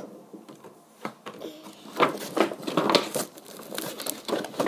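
Toy packaging of cardboard and plastic crinkling and rustling as it is pulled open by hand. It starts after a quiet first second, in a series of short crackles.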